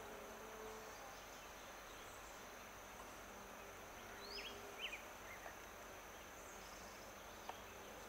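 Faint woodland ambience: a steady, high-pitched insect drone, with a few short, quick chirps from a bird about four to five seconds in.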